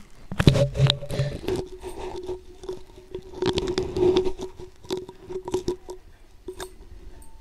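Spatula stirring and scraping thick masala paste against a metal kadhai, with irregular clicks, scrapes and wet squishing as the paste fries in oil until the oil separates. A louder knock comes about half a second in, over a faint steady hum.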